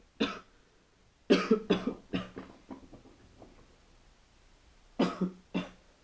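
A man coughing hard in fits: one short cough, then a run of coughs that trail off, then two more about five seconds in. He is choking on a piece of food.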